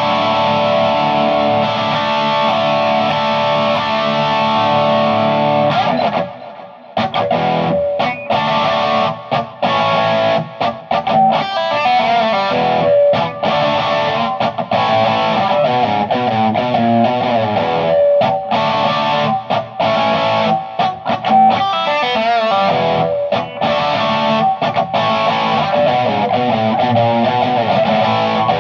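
Electric guitar played through a Naughty Amps Li'l Bitch amp head on a crunch setting, heard from an Orange speaker cabinet. Held distorted chords ring out for about six seconds, then after a brief break the playing turns choppy, with short stops between chords.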